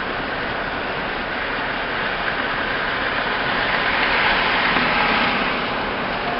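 Steady road, tyre and engine noise heard inside a truck's cab at highway speed, swelling louder for a couple of seconds near the middle.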